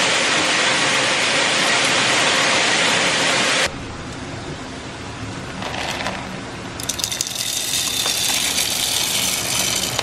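A grain dryer unloading shelled corn, a loud steady rush, cuts off abruptly after a few seconds. Later, shelled corn kernels are poured from a sample pan into a handheld mini GAC grain moisture tester with a crackly rattling hiss near the end.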